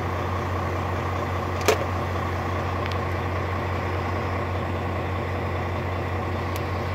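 Volvo VNL semi truck's diesel engine idling steadily, heard from inside the cab, with one short click a little under two seconds in.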